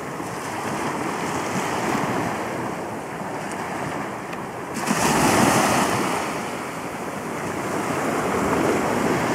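Small waves lapping and washing onto a sandy beach, with wind buffeting the microphone. The wash swells louder about halfway through.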